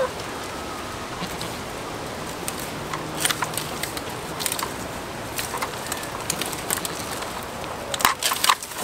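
Goats browsing a leafy bush: scattered snaps and crackles of twigs and leaves being pulled and chewed, with a quick cluster of snaps near the end.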